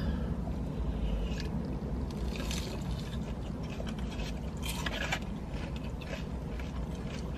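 Wet chewing and mouth sounds of people eating fried Korean corn dogs, short irregular smacks over a low steady hum.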